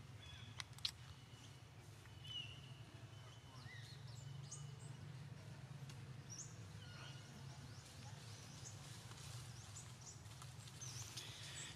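Faint outdoor ambience: a low steady hum with scattered short, high chirps throughout, and two sharp clicks within the first second.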